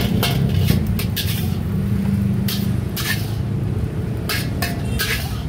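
A metal spatula clanking and scraping in a wok of frying rice, a dozen or so sharp irregular clatters over a steady low rumble.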